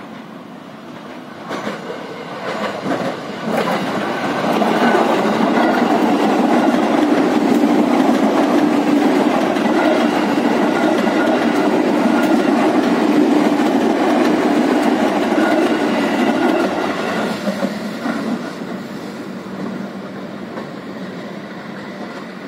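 JR 205 series electric commuter train passing close on a curve: wheels clattering over the rails, growing loud within a few seconds as the cars go by, then fading away. Thin high tones sound above the rumble while the cars pass.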